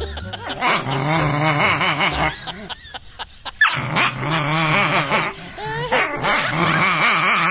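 A dog snarling aggressively in long, wavering growls, with a short break about three seconds in.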